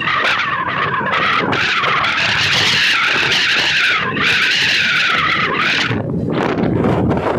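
Train wheels screeching against the rails, a harsh squeal that wavers up and down in pitch over the low running rumble of the moving coach, dying away about six seconds in.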